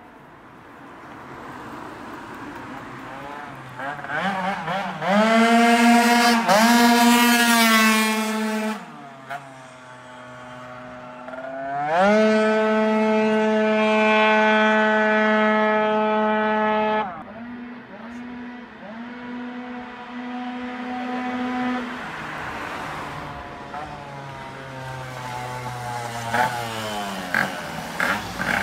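Beta Ark scooter's two-stroke Minarelli engine with a 70 cc Malossi cylinder and Malossi exhaust, pulled at full throttle on a test run. The revs climb steeply and hold at one high pitch for a few seconds, twice. Then the engine runs lower and comes back near the end. The rider felt the transmission was a bit short and says the variator needs shimming.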